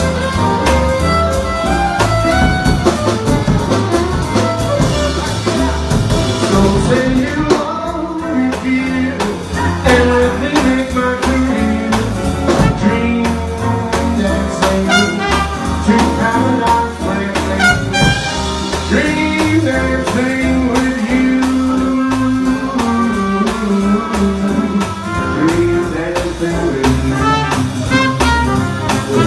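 Jazz music with horns playing.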